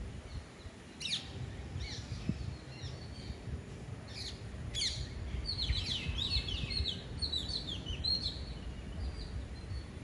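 Parakeets calling: scattered short, harsh chirps from about a second in, thickening into a rapid, overlapping chatter through the second half, over a low rumble.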